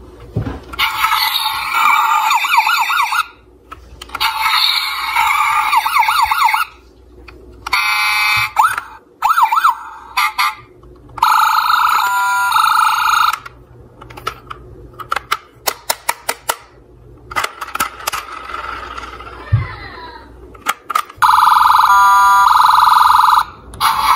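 Electronic siren sound effects from a battery-powered toy police SUV, played in repeated wavering bursts of a few seconds each as its roof buttons are pressed. Between the bursts come sharp clicks and rattles of the plastic toy being handled.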